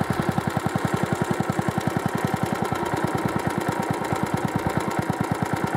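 Small lawnmower engine idling fairly well while still cold, with an even beat of about ten firing pulses a second, as the idle speed screw on its new carburettor is being turned down.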